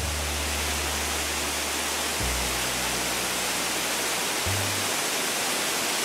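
Steady rush of pouring water, a cartoon sound effect for a water tanker truck emptying its tank through a pipe, over background music with low held notes.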